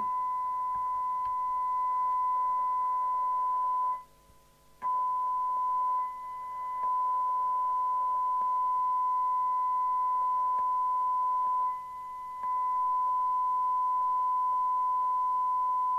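Steady 1 kHz test tone from the Murphy CBH1500 CB base station's speaker: the receiver is demodulating a 1 kHz-modulated test signal from a signal generator during receiver alignment. The tone cuts out for most of a second about four seconds in, and dips briefly twice more.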